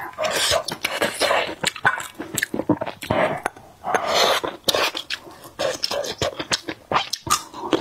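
Close-miked eating of spicy bullfrog in broth: wet slurps and chewing with sharp lip smacks and mouth clicks, with longer slurps about half a second, three seconds and four seconds in.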